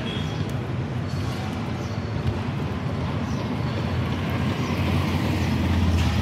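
A motor vehicle engine running close by, a steady low rumble that grows louder toward the end, over general street traffic noise.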